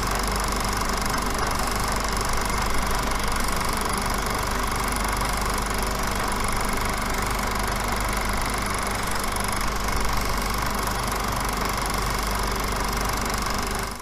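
A steady mechanical running sound with a fast, even clatter that fades in and holds level throughout, then fades out at the end.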